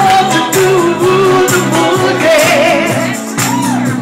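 A live band playing with a singer over a steady beat of about two strikes a second and a bass line.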